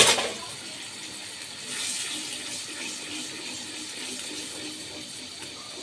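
Butter-based sauce sizzling steadily in a frying pan, with a sharp click right at the start.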